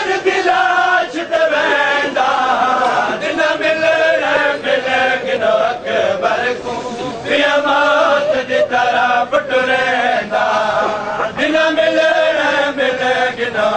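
A crowd of men chanting a Punjabi noha (Shia lament) in unison, in long sung phrases, with repeated sharp slaps of chest-beating (matam) keeping the beat.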